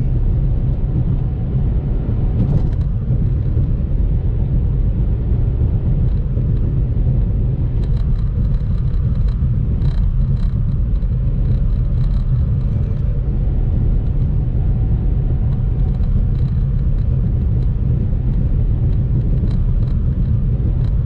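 Steady low rumble throughout, with a few faint high ticks now and then.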